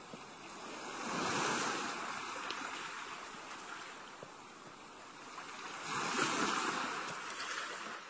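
Gentle ocean waves breaking and washing up a beach. Two swells of surf rise and fall, the first peaking just after a second in and the next about six seconds in.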